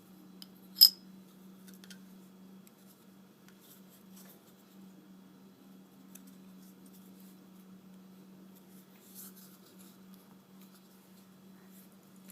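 A single sharp click about a second in, then faint scattered ticks and scrapes of small parts being handled, over a steady low hum.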